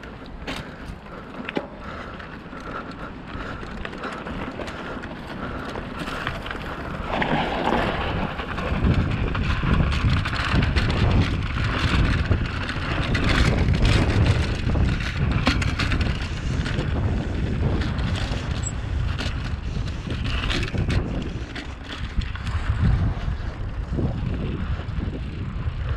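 Wind rushing over the microphone during a bicycle ride, with scattered clicks and rattles from the bike; the rush grows louder about eight seconds in.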